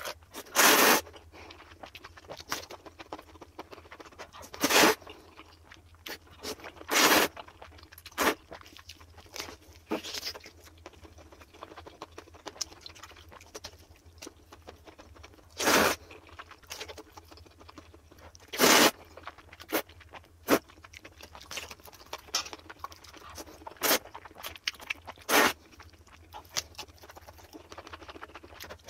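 Close-miked eating of spicy stir-fried instant noodles and kielbasa sausage, played back sped up: loud, sudden slurps and bites every few seconds, with quieter chewing and mouth clicks between them.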